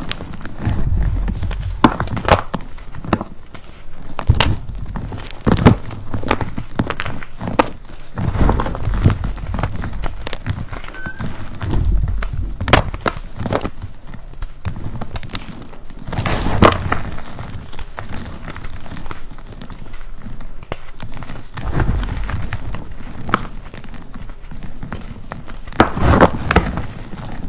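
Reformed gym chalk crushed and crumbled by hand: crunching of thick chalk chunks breaking apart with sharp cracks, and powder and small pieces pouring back onto the pile, in irregular handful-by-handful spells.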